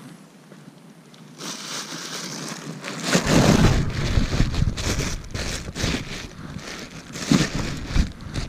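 Rumbling, crackling noise on the camera's microphone, starting suddenly about three seconds in and going on unevenly, typical of wind buffeting or the camera being handled.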